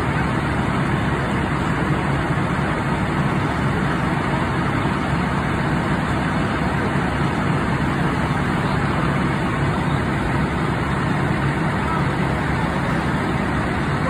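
Fire engine running steadily at pumping speed to supply the hose lines, a continuous low rumble.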